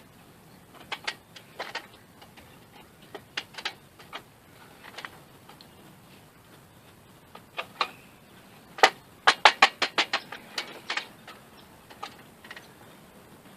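Sharp taps and knocks of metal hand tools on a wooden board as nails and a screw are worked out of it: scattered single taps, then a quick run of about ten blows near the end.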